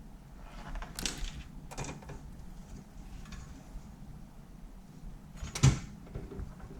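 Hands handling parts inside a PC case during a power supply install: a few short rustling scrapes in the first two seconds, then one sharp knock about five and a half seconds in.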